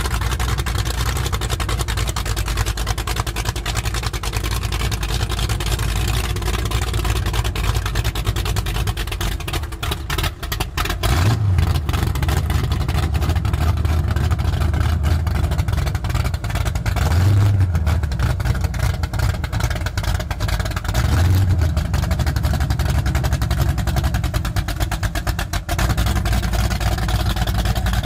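Speedboat's inboard engine idling with a steady low rumble, rising briefly three times in the second half as the throttle is blipped.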